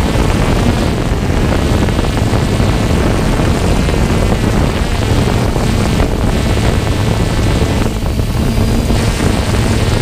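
A motor running steadily at an even pitch over a constant rushing noise.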